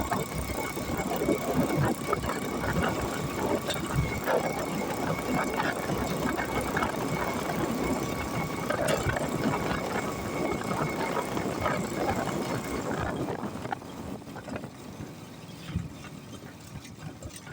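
Auto-rickshaw running along the road, its engine and body heard from the passenger seat with constant irregular rattling, and a faint steady whine over it. The noise eases about thirteen seconds in.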